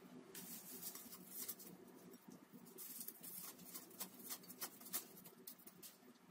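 Dry, thin baklava phyllo (yufka) sheets being torn by hand into small pieces: faint, irregular crackling and rustling.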